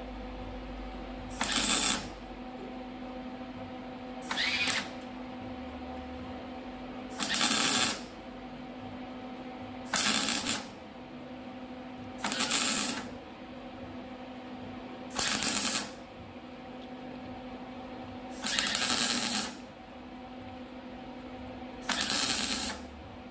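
MIG welder tack-welding steel exhaust pipe sections: eight short crackling bursts of the arc, each under a second, a few seconds apart, with a steady hum between them.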